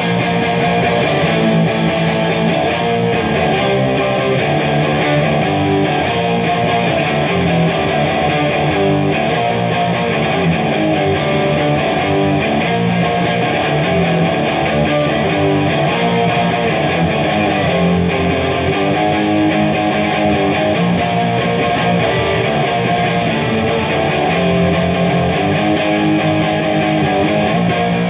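Electric guitar playing a continuous chord passage, the notes changing every second or so.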